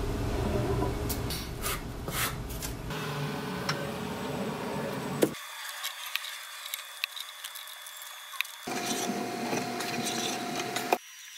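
Titebond III wood glue squeezed from its plastic squeeze bottle onto pine 2x4s: soft squishing and rubbing of the nozzle against the wood, with a few light clicks and knocks. The background noise changes abruptly twice.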